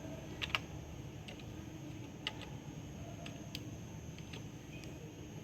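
Irregular keystrokes on a computer keyboard, about ten separate clicks with uneven gaps, over a steady low hum.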